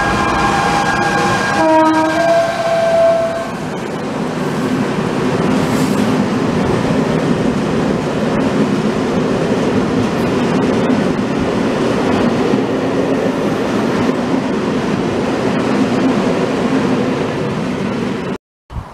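Electric freight locomotive sounding its horn as it runs through, the horn dropping to a lower note before it stops about three and a half seconds in. Then a long train of covered hopper wagons rumbles and clatters steadily past over the rails.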